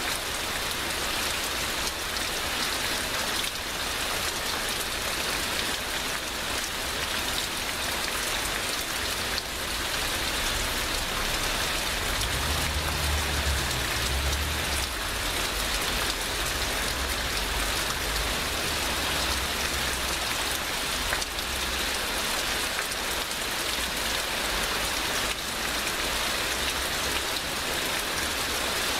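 Heavy rain pouring steadily, a dense even hiss of drops hitting surfaces. A low rumble rises and fades under it near the middle.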